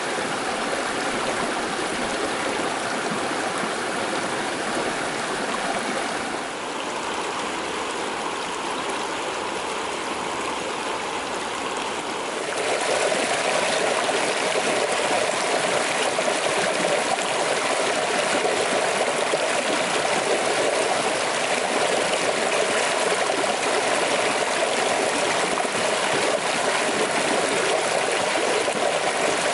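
A shallow creek rippling over rocks in steady riffles; about twelve seconds in it gives way to the louder, fuller rush of a small cascade pouring between boulders.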